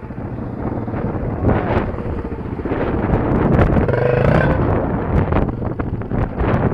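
Trail motorbike engine running at low speed on a rough track, with wind buffeting the helmet-mounted microphone and many sharp knocks and rattles from the bike over the bumpy ground.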